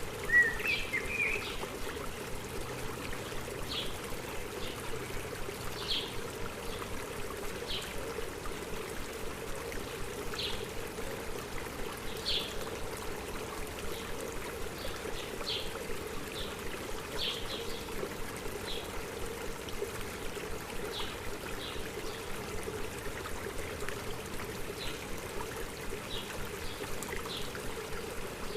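A small stream running steadily, with a bird giving a short high chirp every second or two. About half a second in comes a brief, louder twitter.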